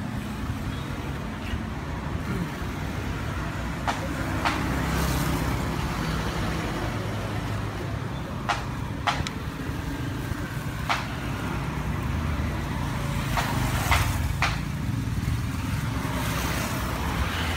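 Steady street traffic rumble, with light clicks and taps at irregular moments scattered through it.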